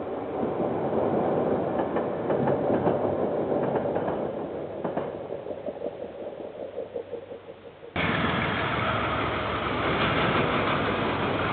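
Diesel freight locomotive running past with its train, with a few sharp clicks, the sound dying away after about six seconds; at about eight seconds it cuts abruptly to another diesel locomotive running close by, louder and steady.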